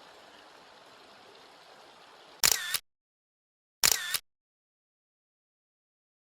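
Faint steady rush of a small creek, then two camera shutter clicks about a second and a half apart, each followed by dead silence.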